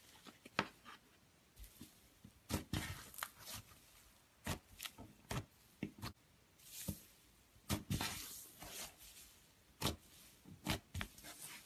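Thick slime being squeezed and pressed with the fingers, giving about twenty irregular clicks and pops, with short tearing sounds as it is pulled apart.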